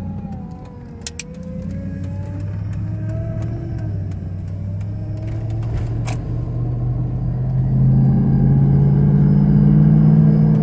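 Hummer H2's V8 engine running while the truck drives, a steady low drone that rises in pitch and grows louder over the last few seconds as it accelerates.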